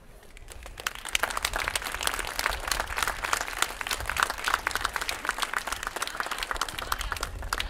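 Audience applauding: many hands clapping, building up over the first second, then holding steady and thinning out near the end.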